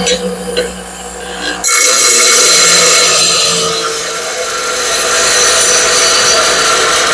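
A power tool's motor running, then the loud, steady rasp of a steel lawnmower blade's edge being ground, starting suddenly about two seconds in.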